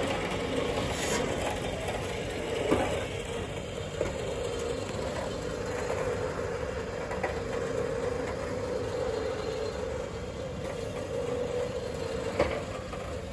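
An electric winch running steadily as it pulls a car up onto a car trailer, with a few knocks from the car and trailer along the way.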